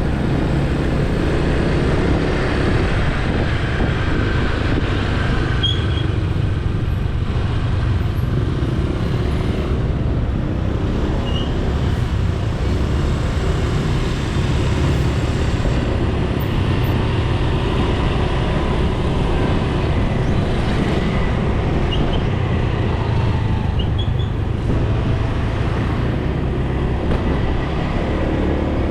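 Motorcycle taxi moving along a city road, heard from on board: a steady low engine and road rumble.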